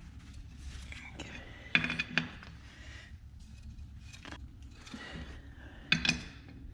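Metal objects clinking and clanking against each other, like hand tools or loose metal parts being handled, with a bright ring. There are two clanks about two seconds in, one a little after four seconds and a louder pair at about six seconds, over a low steady hum.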